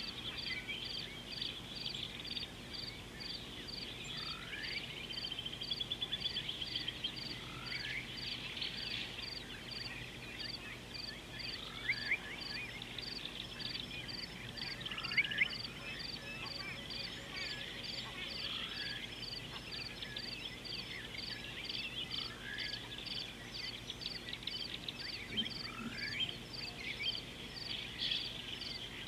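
Chorus of calling frogs and insects: a high, even pulsing call at about two pulses a second, with short rising chirps repeating every couple of seconds over a busy chatter. A couple of sharp clicks stand out in the middle.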